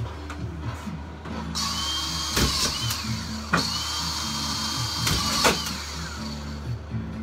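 Makita cordless drywall screw gun driving screws up through plasterboard into the ceiling joists. Its motor whines up twice to a steady pitch with a dip in between, with a few sharp clicks as the screws are driven home.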